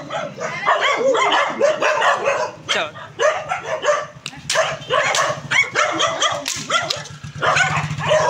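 Street dogs barking and yipping over and over, several short barks a second with brief lulls.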